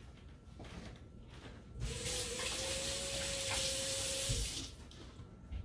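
Water faucet turned on about two seconds in and running for about three seconds while hands are washed under it, with a thin steady whistle, then shut off.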